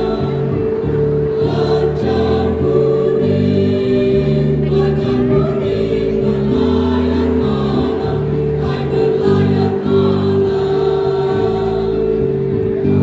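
A choir singing, with one note held steady throughout while the lower parts change pitch every second or so.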